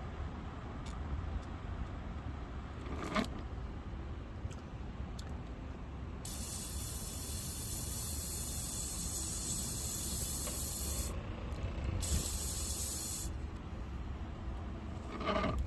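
Aerosol can spraying in two bursts, a long one of about five seconds and then a shorter one of about a second, over a steady low hum.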